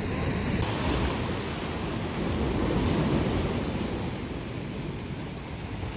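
Sea surf breaking and washing over breakwater rocks: a steady rushing that swells about three seconds in.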